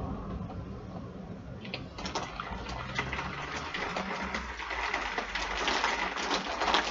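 Heavy rain pouring down in a thunderstorm, a dense crackling patter that grows suddenly heavier about two seconds in, with a low rumble beneath.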